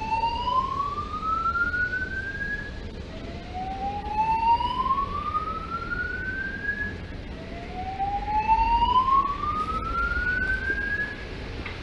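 Fire alarm voice-evacuation speakers sounding a slow-whoop alert tone: three rising sweeps, each climbing in pitch for about three and a half seconds and then starting over, played in a large echoing station hall.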